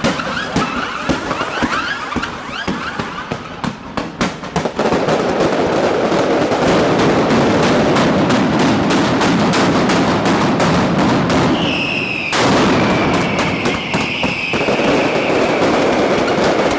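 Mascletà firecrackers going off: separate sharp bangs at first, then from about five seconds in a dense, continuous rattle of explosions. A high whistle slides slowly down in pitch over the last few seconds.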